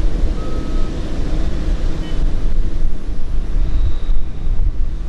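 Boeing 787-9 jet engines at taxi power as the airliner rolls past: a steady low rumble with a hiss that eases about halfway through.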